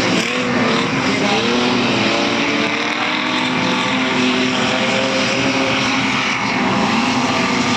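Several street stock race cars' engines running together in a heat race, their pitch rising and falling as they rev and lift through the turns.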